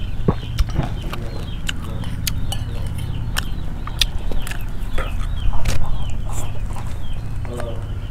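Chickens clucking close by, over the sharp clicks and smacks of someone eating soup: a spoon against the bowls, sipping and chewing. A steady low rumble runs underneath.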